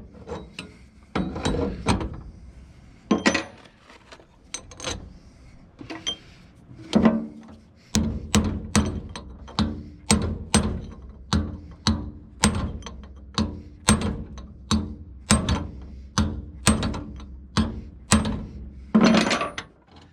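Hammer striking metal, driving new lug studs into a wheel hub so they seat. A few scattered blows, then a steady run of about two ringing strikes a second through most of the second half.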